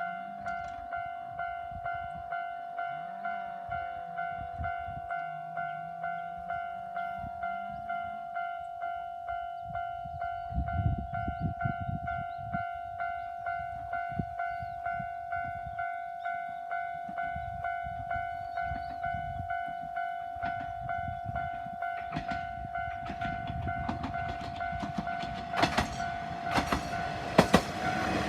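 Japanese level-crossing alarm ringing, a steady electronic bell tone repeating in regular dings. A train comes through: its rumble joins about ten seconds in, and loud clacks of wheels over the rail joints come near the end.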